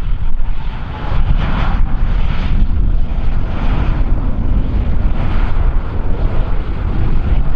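Strong wind buffeting the microphone: a loud, gusty rumble that surges every second or so.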